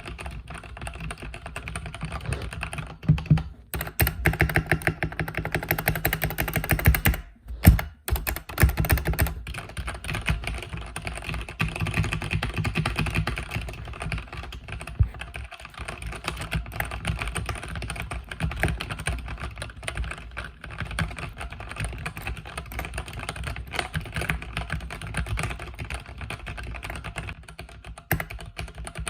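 Continuous fast typing on a mechanical keyboard with red linear switches: a dense stream of key strokes, with two brief pauses in the first third and a few louder strokes just before them.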